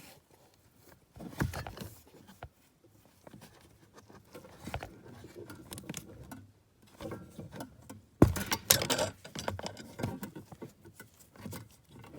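Hands handling a cable and a wire hanger at a rubber firewall boot: irregular rustles and clicks, with a burst of louder clattering about eight seconds in.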